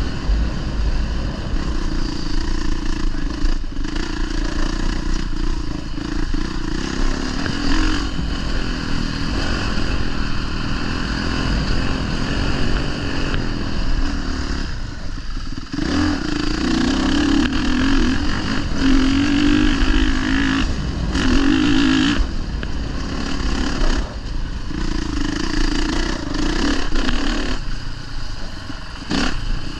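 Honda 450 motocross bike's single-cylinder four-stroke engine being ridden, its note rising and falling with the throttle and dropping out briefly several times as the throttle is shut.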